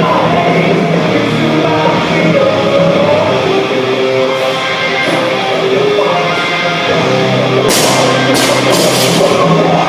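Rock music with singing and guitar, with a few short, bright crashes near the end.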